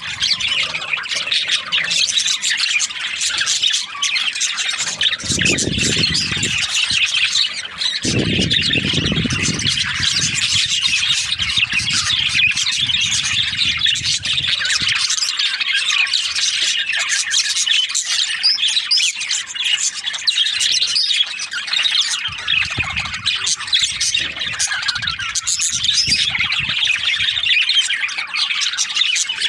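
A flock of budgerigars chattering and chirping nonstop, many birds calling over one another in quick squawks and warbles. A low rumble comes and goes underneath at times.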